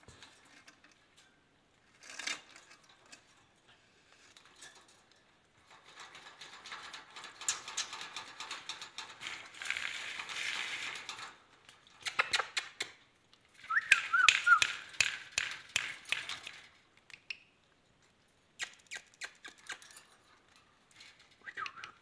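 Rustling, scraping and sharp clicks on a wire cage holding ringneck parakeets, in several bouts, with a few short high chirps from the birds about fourteen seconds in.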